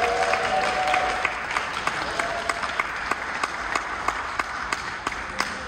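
Audience and panelists applauding, a patter of many hand claps that gradually dies down toward the end.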